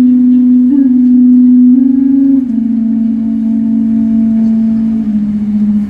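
Loud held synthesizer tone from the dance show's backing music, stepping down in pitch about halfway through and again near the end, with a fainter higher tone above it.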